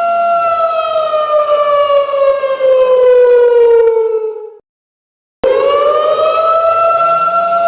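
Siren wailing: a steady pitch that slides slowly downward over about four seconds, then cuts off abruptly. After a brief gap it starts again, rising quickly back to its earlier pitch and holding it steady.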